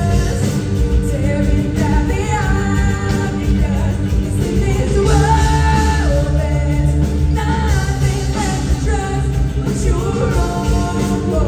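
Live rock band playing with a woman singing the lead melody over electric guitars, bass, keyboards and drums, heard from the audience in a concert hall.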